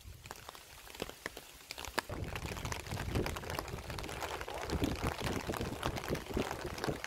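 Rain: scattered single drops for about the first two seconds, then steady heavy rain hissing and splashing on a wet asphalt road.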